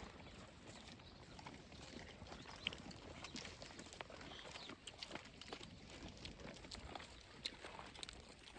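Goats moving about on a hard floor: faint, scattered taps and knocks of hooves, with one sharper knock a little before the middle.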